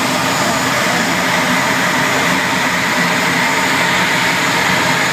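A Eurofighter Typhoon's twin EJ200 turbofans run steadily while the jet taxis, heard from inside the cockpit as an even rush of noise with a faint steady whine.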